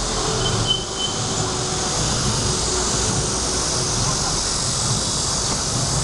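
Steady street ambience: a low traffic rumble under a constant high hiss.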